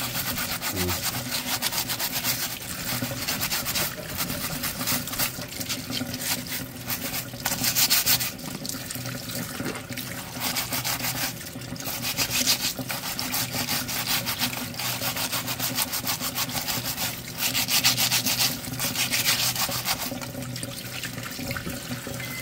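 Stiff plastic scrub brush scrubbing the shells of live Dungeness crabs under a running tap in a stainless steel sink: rapid back-and-forth rasping strokes, in louder spells, over the steady splash of the tap water.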